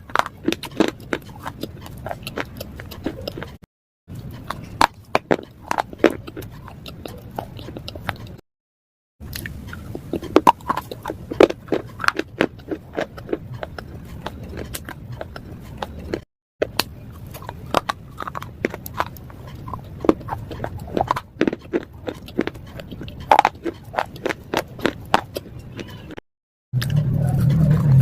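Pieces of slate being bitten and chewed, a dense run of crisp, crackling crunches. The sound drops out abruptly several times where separate clips are joined.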